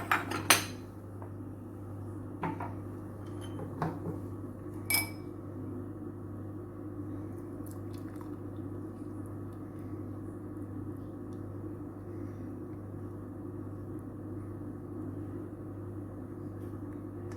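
A pot and strainer clinking against a glass several times in the first five seconds as boiled milk is strained, then a steady low hum.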